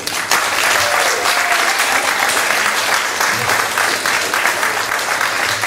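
Hall audience applauding as a song ends: dense, steady clapping that starts at once.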